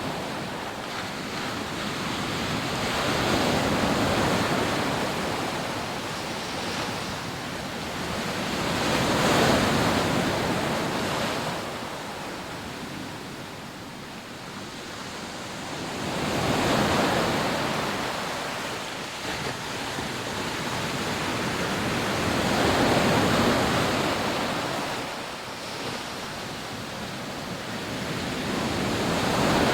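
Rough sea surf breaking on a sandy beach: a continuous rushing wash that swells with each breaking wave about every six seconds and then ebbs, with some wind on the microphone.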